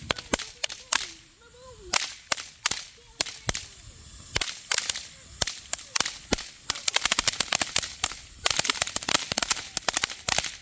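Fireworks crackling: sharp, irregular pops, scattered at first and then a dense rapid crackle from about halfway through.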